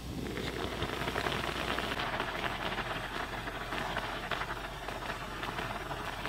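Food sizzling and crackling in a hot pan with oil, a steady dense spitting.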